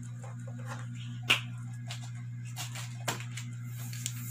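Gift-wrapping paper on a box being handled and pulled at during unwrapping, with a sharp snap about a second in and a softer one near three seconds, over a steady low hum.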